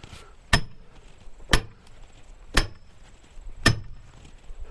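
Splitting maul striking a steel wedge driven into a black oak log: four hard metallic strikes, about one a second, each with a short ring.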